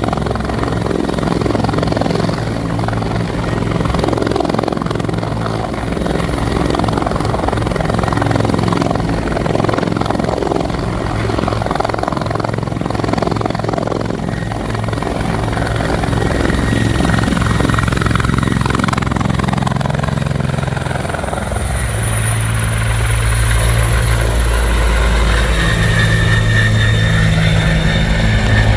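Bell 412EP helicopter running with a steady rotor chop and turbine noise. About twenty seconds in, a deeper hum and a thin high whine grow stronger as the sound gets a little louder.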